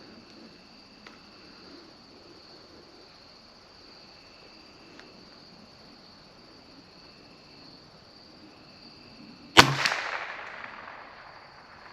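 A single .22 LR rifle shot from a CZ 457 bolt-action rifle near the end, a sharp crack that rings out and dies away over about a second and a half. Before it the range is quiet apart from a faint steady high tone.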